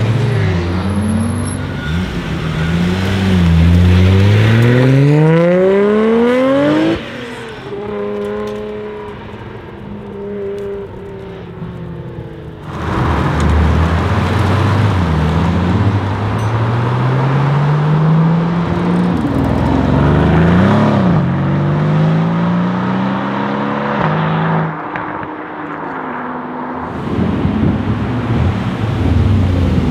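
Porsche 991 GT2 RS twin-turbo flat-six accelerating hard: engine pitch climbs through the gears, dropping back at each upshift. Several separate runs follow one another, with a sudden drop to a quieter, steadier engine note about seven seconds in and a return to loud acceleration near the middle.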